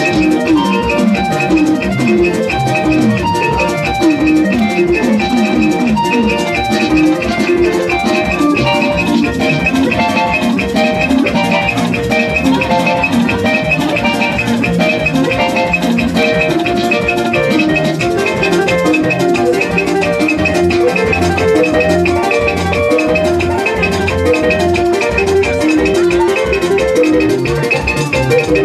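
Loud music with a steady, fast drum beat under busy melodic notes.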